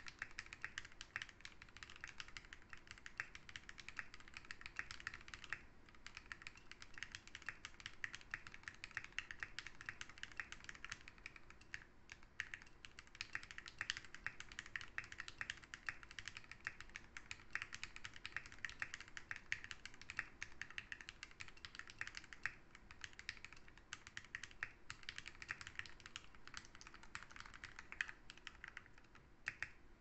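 Continuous fast typing on a GK64XS mechanical keyboard fitted with Meteor White linear switches lubed with Krytox GPL 205g0, in a CNC metal alloy case: a dense run of keystroke clacks. There are brief pauses about six and twelve seconds in, and the typing stops just before the end.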